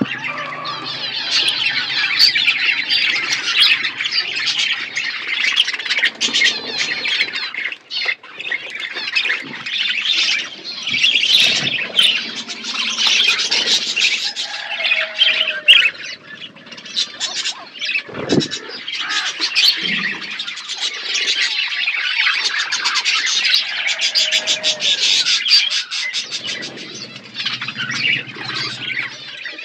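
A flock of budgerigars chattering and calling continuously, many birds overlapping at once, with brief lulls about a third and about halfway through.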